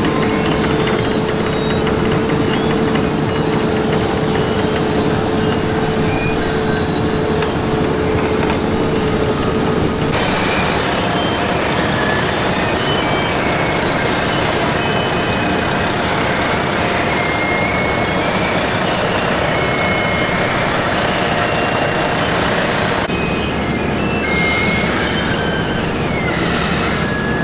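Heavy asphalt-paving road machinery running steadily: a constant engine rumble with a held mechanical whine. The sound shifts abruptly to a higher whine about ten seconds in and changes again near the end.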